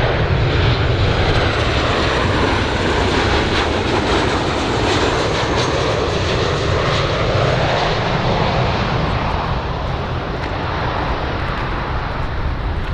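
Boeing 737-800-series jet airliner on final approach with landing gear down, its CFM56 turbofans making a steady loud jet noise whose tone slowly shifts as it passes, easing slightly near the end.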